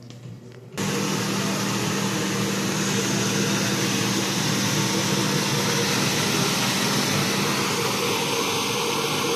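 Air blower of a stuffed-animal bath station, blowing air through the shower-head nozzles to fluff the bear. It switches on suddenly about a second in and then rushes steadily and loudly, with a steady hum underneath.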